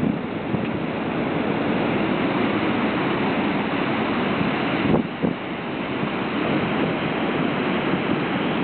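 Steady rushing of water at a dam, with a brief knock about five seconds in.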